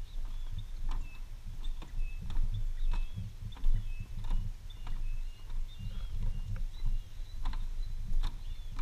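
Footsteps knocking on the wooden planks of a footbridge, irregular and uneven, over a steady low rumble. Birds call throughout in short, high, repeated whistled notes.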